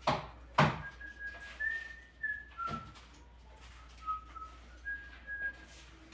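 A short whistled tune: clear, steady notes stepping up and down, several in a row. It is preceded by two sharp knocks at the start, with a softer knock a few seconds in.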